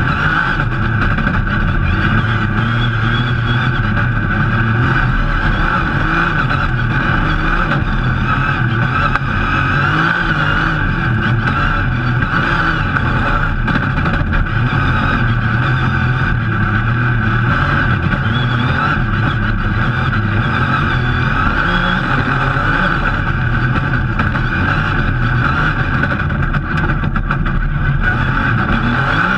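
Rally car engine running hard under load on a loose dirt stage, revving up and down, heard from inside the stripped cockpit along with steady road noise.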